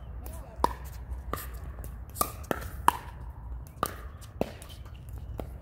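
Pickleball rally: the hollow plastic ball knocked back and forth with paddles, a string of sharp pocks every half second to a second, the loudest near the middle.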